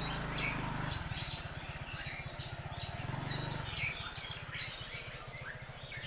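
Birds chirping and calling, with many short, quick calls one after another, over a low, steady mechanical rumble.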